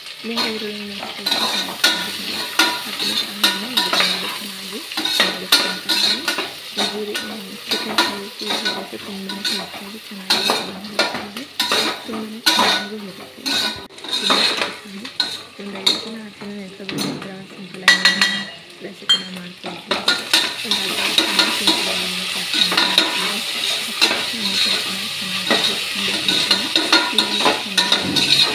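Sliced onions and green chillies frying in oil and butter in an aluminium pressure cooker, sizzling, while a metal slotted spatula scrapes and clinks against the pot in repeated strokes. The sizzle settles into a steadier hiss about two-thirds of the way through.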